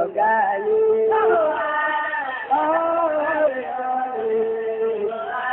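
A man chanting Quranic recitation (tajwid) in Arabic, holding long ornamented notes in a few drawn-out phrases.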